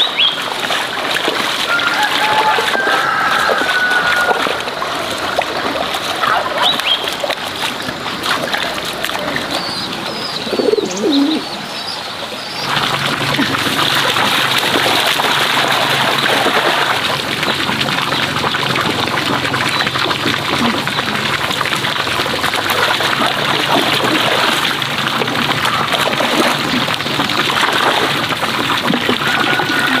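Muddy pond water splashing and churning as someone works in the shallows, with a few bird calls in the first half. About 12 seconds in, the sound changes abruptly to a steadier, louder rush of water.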